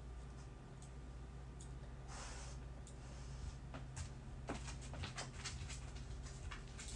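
Faint clicks and taps of fingers working a wristwatch's buttons, coming thick and fast from about three and a half seconds in, over a low steady hum. A soft breath out about two seconds in.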